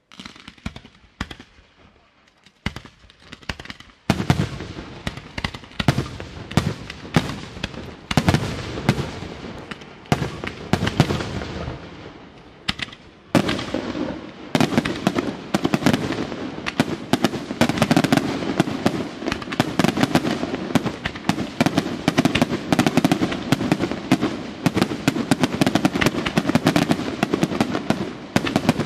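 Aerial fireworks display: shells and comets launching and bursting in a rapid string of bangs that starts suddenly, thickens about four seconds in, and becomes a near-continuous barrage of bangs and crackle from about thirteen seconds in.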